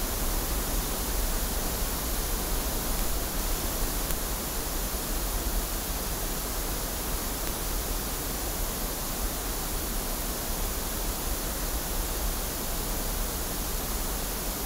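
Steady pink-noise test signal from a loudspeaker, an even hiss with no change, used to measure a microphone's frequency response.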